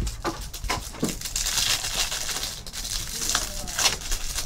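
Clear plastic wrapping on a trading card pack crinkling as hands work it open, after a few light taps of cards on the table.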